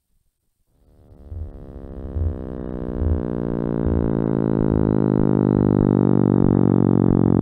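Electronic soundscape: a synthesizer-like drone with many even overtones fades in about a second in and swells, over a low pulse that recurs a little faster than once a second.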